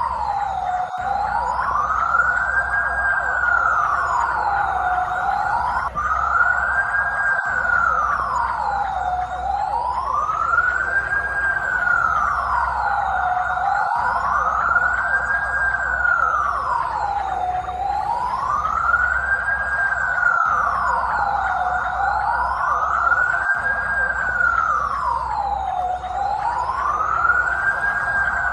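Police car siren sounding the wail tone: a smooth, slow rise and fall in pitch repeating about every four seconds, steady in loudness, over a low rumble.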